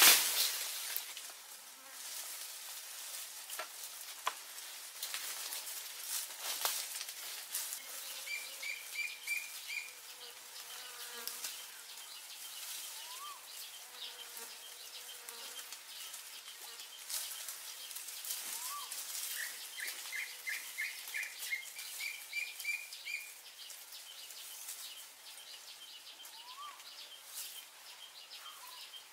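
Forest insects calling steadily in a high pulsing buzz, with a bird giving two runs of short rapid notes and a few small rising chirps. Scattered sharp clicks and knocks sound throughout, the loudest right at the start.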